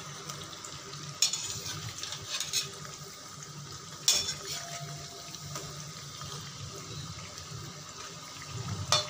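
Fish-egg pakoras deep-frying in hot oil in a kadhai, a steady sizzle, with a few short scrapes and clinks of a steel slotted spoon against the pan as the pieces are turned.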